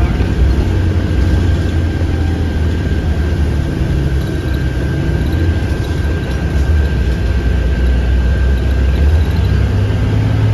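Interior of a 2017 IC CE school bus under way: a steady low engine drone with road and wind noise, and a thin steady whine above it.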